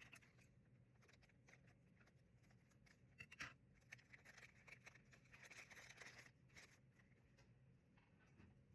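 Near silence with faint handling sounds: scattered light clicks and a soft rustle of small packaging, busiest about three to six seconds in.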